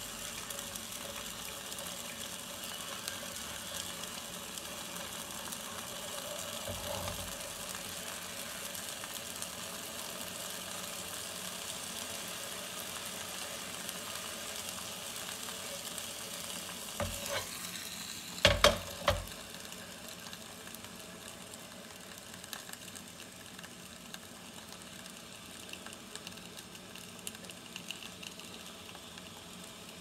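Takoyaki sandwich frying inside a closed CHUMS hot sandwich maker over a portable gas stove's burner, a steady sizzle and hiss. About 17 to 19 seconds in, a few sharp metal clanks as the cooker is flipped over on the stove grate.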